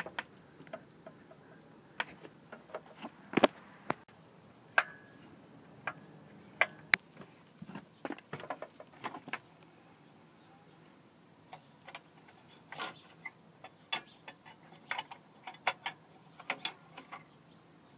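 Irregular small metallic clicks, taps and knocks of a screwdriver and fingers working the screws and metal battery mount bracket of a Bruno SRE-2750 stair lift, with a quiet pause near the middle.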